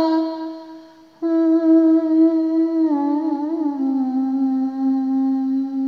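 A single woman's voice singing a naat unaccompanied, holding long notes on a drawn-out vowel. One note fades out about a second in. A new note comes in and is held, with a small ornament and then a step down in pitch about four seconds in.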